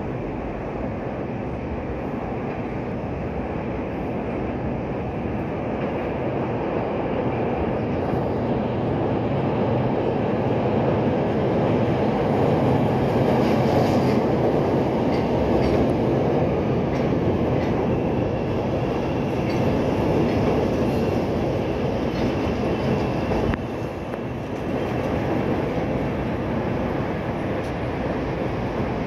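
Chicago 'L' rapid-transit trains running on the elevated tracks: a steady rumble of wheels on rail that builds to its loudest about halfway through as one train passes. It dips briefly, then rises again as a second train comes in on the other track near the end.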